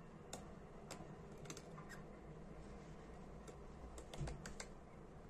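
Faint, scattered small metal clicks and ticks of fine tweezers working against a Dunhill Dress lighter's gas insert, bunching into a quick cluster about four seconds in. The tool is picking at the valve's rubber O-ring.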